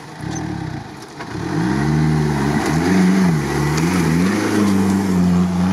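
Toyota Land Cruiser 70-series 4x4 engine revving under load as it drives through grassy ruts. The revs rise about a second and a half in, swing up and down a few times, then hold steady near the end.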